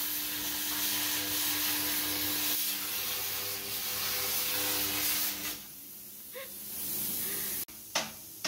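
Cutting torch hissing steadily as it cuts through steel plate, with a faint steady hum in the hiss; it stops about two-thirds of the way through. Near the end a hammer strikes the clamped steel plate with a sharp, ringing knock.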